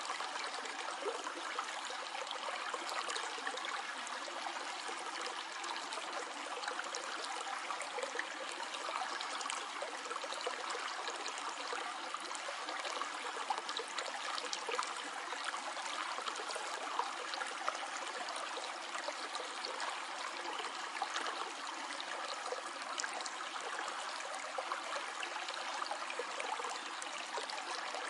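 Stream flowing over stones, a steady splashing and trickling without a break.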